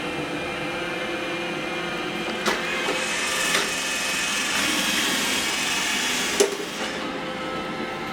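iRobot Roomba robot vacuum running, its motor hum and brush noise growing louder with more hiss from about three seconds in to about seven seconds in. Two sharp knocks come at about two and a half and six and a half seconds.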